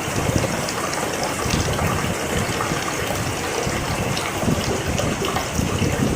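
Rain falling steadily, an even wash of water noise with scattered small patters and a rumbling low end.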